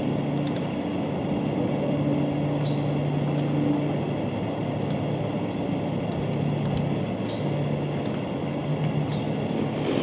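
Steady low mechanical drone over constant rumbling noise, with a hum that drops in and out.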